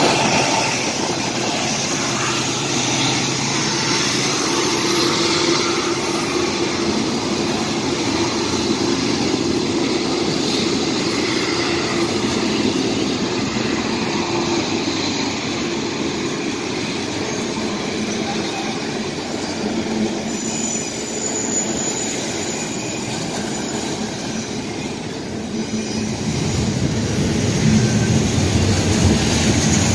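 Double-stack intermodal freight train's container cars rolling past close by: a steady rumble and clatter of steel wheels over the rails, getting louder in the last few seconds.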